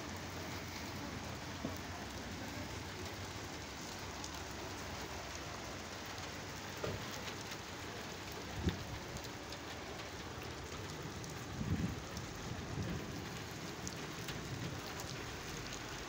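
Steady heavy rain falling on wet paving and puddles, with the patter of individual drops. A couple of brief low thumps, about 9 and 12 seconds in.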